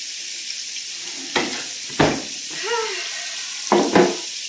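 Hot oil sizzling steadily as chicken fries in a pan, with several sharp knocks and clatters of an air fryer basket being handled on the counter, twice about a second and a half apart in the middle and twice near the end.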